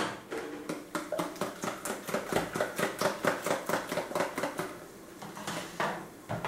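A spoon beating raw eggs in a plastic bowl: a quick, steady clatter of about five strokes a second, then a couple of separate knocks near the end.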